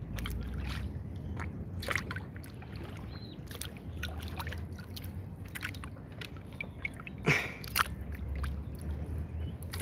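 A kayak being paddled: quiet paddle and water sounds, soft sloshing and light scrapes and clicks against the hull, over a low steady rumble. Two sharper knocks come a little after seven seconds.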